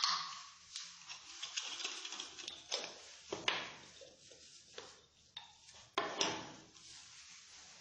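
Several sharp knocks with rattling and scraping in between as the grinder and the freshly powdered dried herbs in it are handled.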